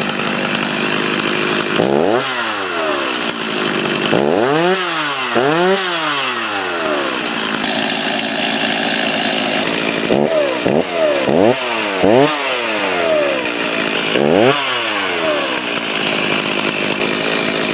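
Stihl MS 290 56cc two-stroke chainsaw running, revved up and back down again and again in quick throttle blips, with stretches held at high speed between.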